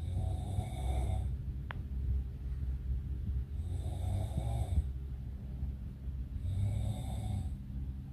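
A person snoring in their sleep, three long snores about three seconds apart, over a steady low hum.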